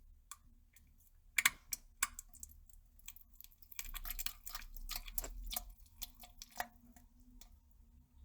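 Person defecating into a toilet: an irregular run of small wet crackles and clicks, thickest in the middle, over a low rumble for a second or two.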